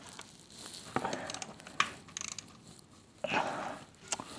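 A ratchet with a 17mm socket being worked counterclockwise against a tight sump plug: a couple of short bursts of ratchet clicking with scattered knocks of the tool against the engine.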